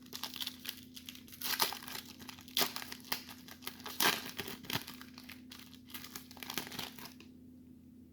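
Wrapper of a 1994 Topps Series 1 baseball card pack being torn open and crinkled by hand: a run of irregular crackles and rips that stops about seven seconds in.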